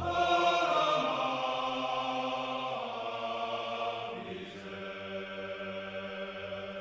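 Background music: a choir-like chant of long held notes, moving to a lower, quieter chord about four seconds in.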